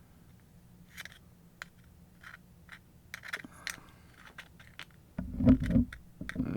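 Small clicks and scrapes of the angle grinder's gear-head parts being handled on a workbench. About five seconds in, loud low knocks and bumping take over.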